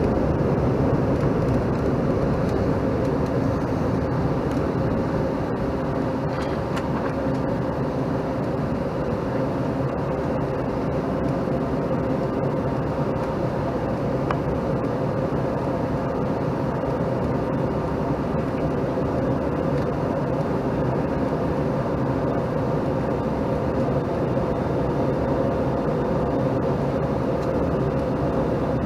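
Steady cabin noise inside a Bombardier CRJ-700 airliner in flight: the drone of its rear-mounted General Electric CF34 turbofans and the rush of air over the fuselage, with several held engine tones that stay even throughout.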